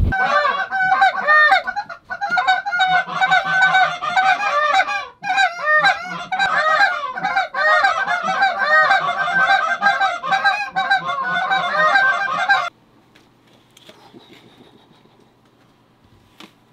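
Canada goose calls blown in a rapid, continuous run of honks and clucks to draw in a passing flock. They cut off abruptly about twelve and a half seconds in, leaving only a faint background.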